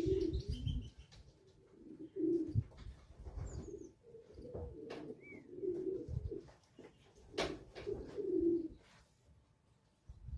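Racing pigeons cooing, a run of low repeated coos, with a sharp click about seven and a half seconds in.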